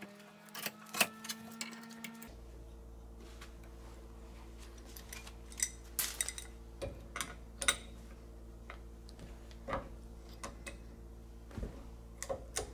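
Scattered light clicks and taps from handling a welded aluminum test coupon in a steel bench vise and fitting an adjustable wrench onto it to bend-test the weld. A faint steady hum comes in about two seconds in.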